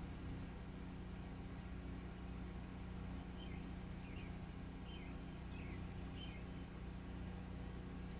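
50 kW DC fast charger running under load, a steady electrical hum with a faint pulsing tone over it. Around the middle a bird chirps five times, each chirp short and falling.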